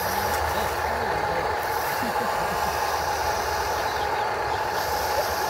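Steady whir of the small electric motors on radio-controlled construction models, with a constant whine.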